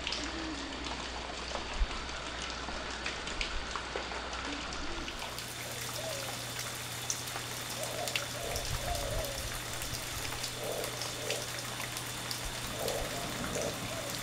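Steady outdoor background hiss with scattered light ticks and patter over a low steady hum; faint short calls come in from about six seconds in.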